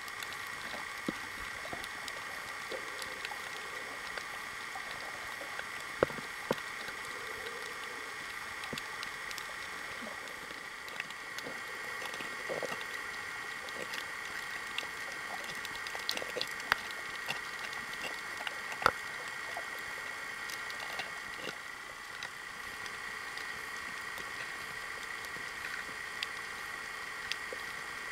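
Underwater reef ambience heard through a submerged camera: a steady hiss with a high, even hum, scattered with sharp clicks and faint crackles.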